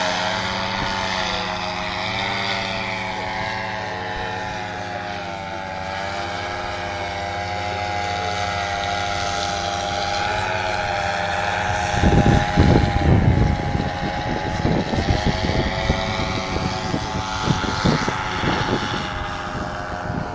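Fly Products Flash paramotor trike's Simonini 200 two-stroke engine and propeller droning overhead in flight, its pitch wavering gently as it passes. From about twelve seconds in, wind buffets the microphone in irregular low thumps.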